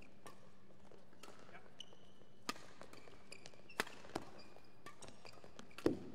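Badminton rackets striking a shuttlecock in a fast doubles rally: a string of sharp, irregularly spaced hits, the loudest near the end. Short squeaks of court shoes come between the hits.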